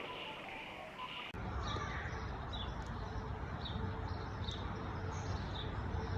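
A short, high chirp repeats roughly once a second over steady rumbling outdoor noise: a small bird calling. The background changes abruptly a little over a second in.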